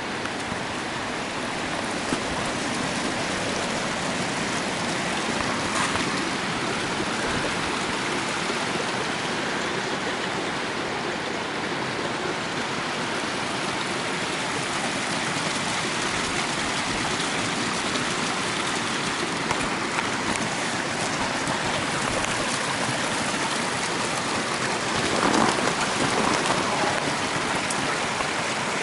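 Mountain stream running, a steady rushing of water.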